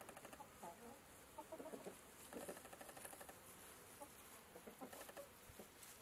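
Domestic hens clucking faintly, in short runs of rapid clucks with scattered single calls between.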